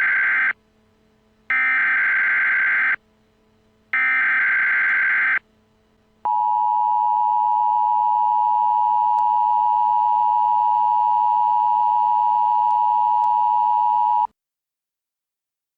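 Emergency Alert System alert tones. Two and a half screeching bursts of SAME header data, each about a second and a half long with a second's pause between, are followed about six seconds in by the steady two-tone attention signal. That tone holds for about eight seconds and cuts off sharply. This is the lead-in to a tornado warning.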